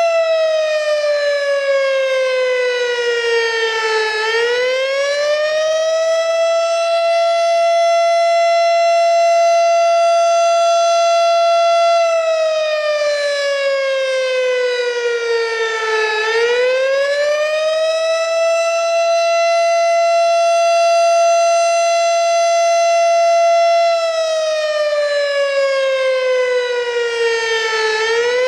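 Federal Signal STH-10 electromechanical fire siren sounding the attack signal: a loud single tone that holds high for several seconds, slides down over about four seconds, then winds quickly back up. The dip comes three times, about twelve seconds apart.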